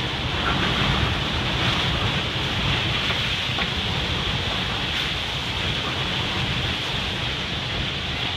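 Heavy rain pouring down in a violent windstorm, a steady rushing noise with gusts rumbling on the microphone.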